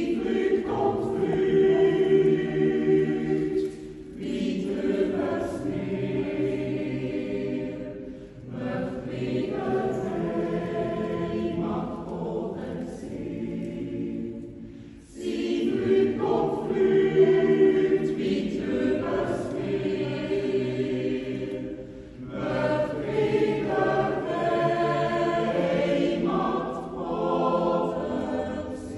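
A Swiss yodel club choir of men's and women's voices singing a Jodellied a cappella in close harmony. The song moves in long phrases with short breaks between them.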